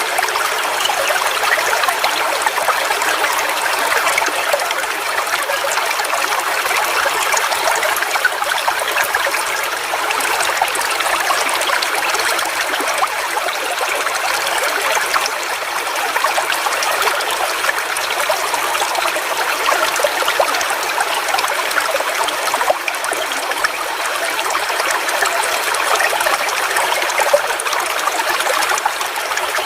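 Forest waterfall: water falling and splashing steadily.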